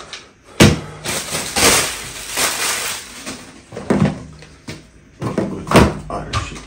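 Hands rummaging in a cardboard box of plastic supplement containers: a sharp knock about half a second in, a couple of seconds of rustling and crinkling, then two more knocks, one a few seconds later and one near the end.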